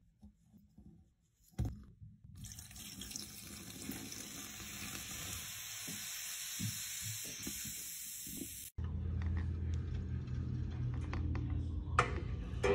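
White vinegar poured onto baking soda in a stainless steel sink drain, foaming and fizzing with a steady hiss that cuts off suddenly about nine seconds in. It is followed by a low steady hum with small clicks.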